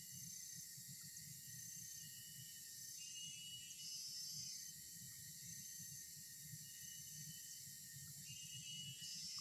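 Faint, steady chorus of insects buzzing, with a brighter, higher trill that swells in twice, about halfway and near the end.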